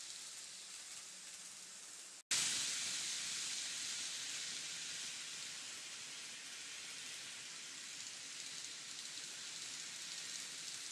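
N-scale E3-series Shinkansen model trains running on the layout track: a steady hissing rush of wheels and motors. It cuts out for an instant about two seconds in, then comes back louder and slowly eases off.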